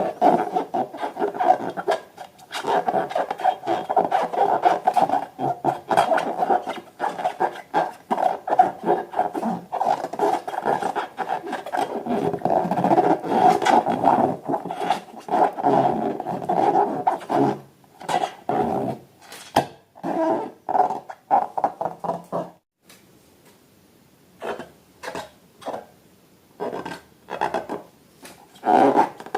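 Rubber balloons being rubbed and handled: a dense rasping rub that goes on steadily, stops about 22 seconds in, then returns in short separate bouts.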